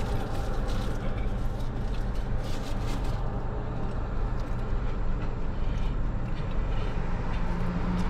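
Steady low hum of a car running, heard from inside the cabin, with a few faint crackles in the first three seconds.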